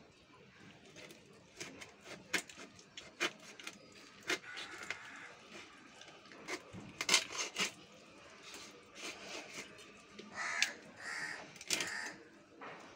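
A snakehead fish's head being split on a bonti blade, with a series of sharp cracks and crunches as the blade goes through the bone. A crow caws a few times near the end.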